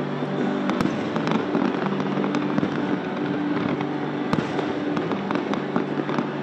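Large fireworks display: a dense, continuous crackling of many shells bursting at once, with sharper bangs about a second in and again past four seconds.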